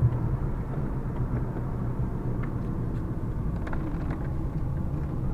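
Steady low rumble of a vehicle driving, heard from inside the cab: engine and road noise, with a few faint clicks.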